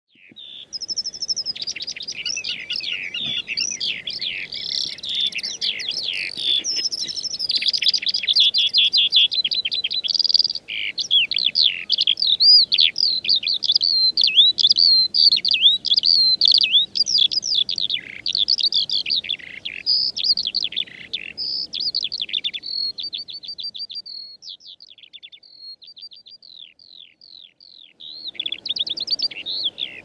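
Eurasian skylark singing: a long, unbroken stream of rapid, high warbles, trills and whistles. About three-quarters of the way through it thins to sparser repeated notes and grows quieter, then picks up again near the end.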